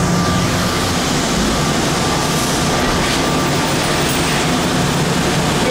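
Rubber-tyred automated people-mover train running in a tunnel and slowing into a station, with a steady running noise and a thin whine that fades out a little past halfway.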